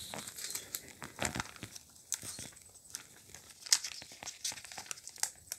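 Sticky tape being peeled off a clear plastic sleeve, with irregular crinkling and crackling of the plastic film and one louder crackle about two-thirds of the way through.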